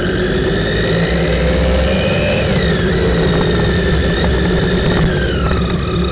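Motorcycle engine accelerating under way, its pitch rising and then dropping sharply about two and a half seconds in at a gear change, running steady, then easing off near the end, over a low road rumble.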